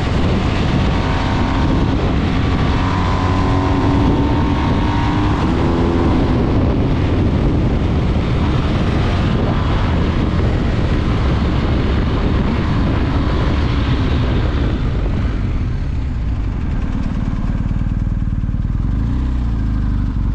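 BMW motorcycle cruising at road speed in third gear: steady engine hum under heavy wind rush over the microphone. It eases off and slows over the last few seconds, the wind noise dying down.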